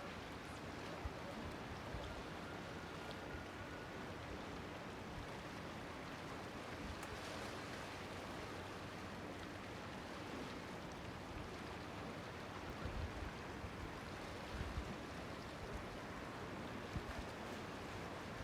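Steady wash of sea water lapping in a small harbour, an even rushing noise, with a few soft low thumps about two-thirds of the way through.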